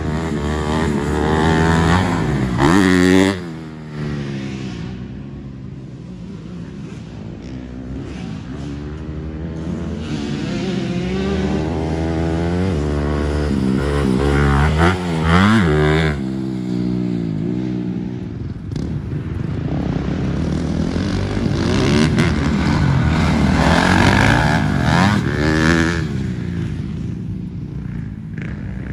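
Motocross dirt bike engines running hard on the track, their pitch rising and falling as riders rev, shift and pass. The loudest passes come about three seconds in, around the middle, and again in the last third.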